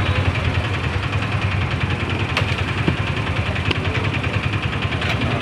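Steady low hum of an idling engine in street traffic noise, with a few light clicks about two, four and five seconds in.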